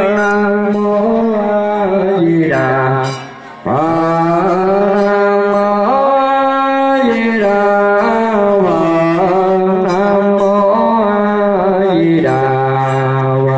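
Buddhist funeral chanting: one voice intoning long, held, wavering notes that slide between pitches, breaking off for a moment about three and a half seconds in before resuming.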